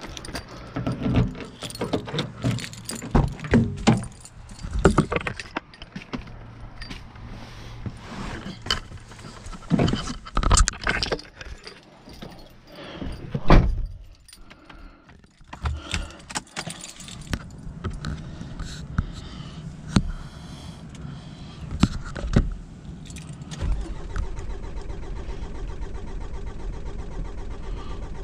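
Keys jangling, with knocks and clunks as the Mitsubishi L200 pickup's door and cab are handled. About three-quarters of the way through a steady low hum sets in: the pickup's engine running.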